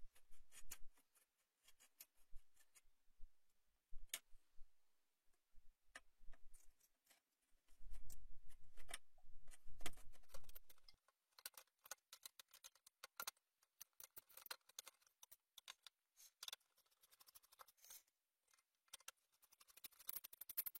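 Screwdriver tightening the four heatsink screws onto a desktop PC's CPU cooler: faint, irregular small clicks and ticks of the screws turning, with a low rumble of handling about halfway through.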